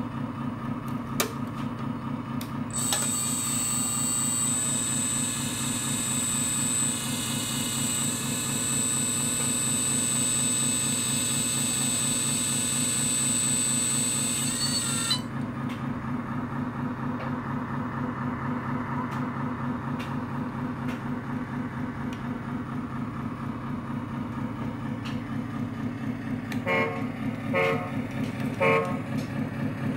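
RC truck sound module playing a truck diesel idling steadily through the model's speaker. From about 3 s to 15 s a high whine with hiss runs over it as the tipper body lowers, and near the end the horn toots three short times.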